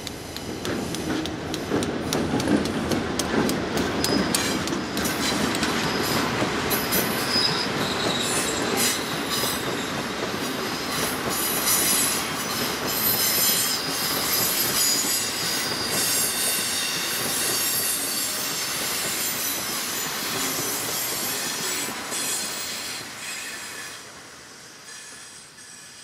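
EMD GP38-2 diesel locomotive passing with its 16-cylinder two-stroke engine running, followed by a string of open hopper cars rolling by on a curve: wheels squeal against the rail and click over the rail joints. The sound fades over the last couple of seconds as the train moves away.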